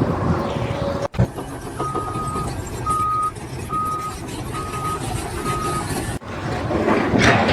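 Vehicle reversing alarm beeping five times, about one beep a second, over a running engine. A louder rush of noise follows near the end.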